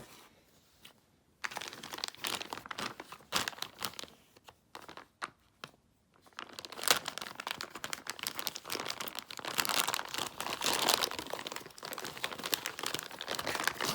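Packaging being crinkled and pulled open by hand: dense, crackly rustling in two spells, with a brief pause about five seconds in.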